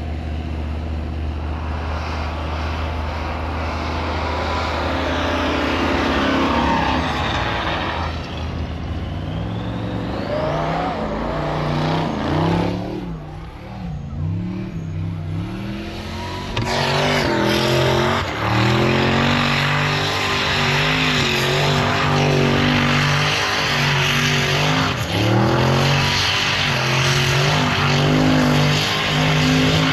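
Drag-racing off-road vehicles' engines, a buggy's and an old Ford's, revving and accelerating on a snow track. The engine pitch rises and falls several times, eases off briefly around the middle, then comes back loud with repeated revving for the second half.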